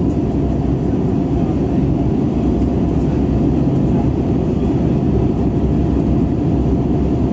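Steady cabin roar of an Airbus A321 in flight, heard from a window seat beside the wing: its IAE V2500 engines and the airflow over the fuselage make a dense low rumble with a faint steady hum above it.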